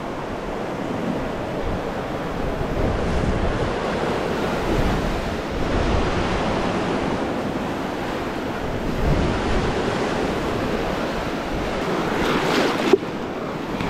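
Lake waves washing ashore in swells that rise and fall, with wind on the microphone. A brief sharp click comes about a second before the end.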